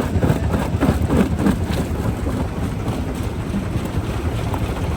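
Heavy rock-crushing machinery running with a steady low rumble, with wind on the microphone.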